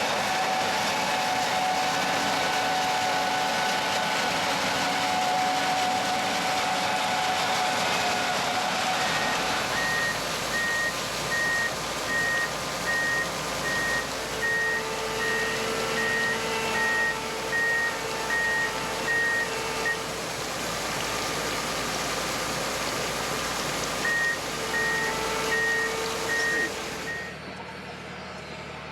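Gleaner S67 combine running steadily, with an electronic alarm beeping about once a second for roughly ten seconds from about a third of the way in, then again briefly near the end. Shortly before the end the machine noise falls off sharply.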